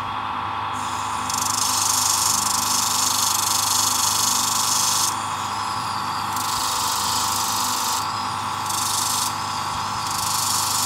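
A small power tool's motor running with a steady whine while a tiny knife bolt is spun and ground to re-cut its chamfer. Hissing grinding contact comes three times, the first and longest starting about a second in.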